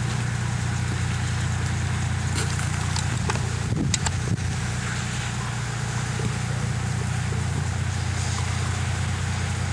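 A steady low hum throughout, with a few short sharp knocks, the loudest cluster about four seconds in.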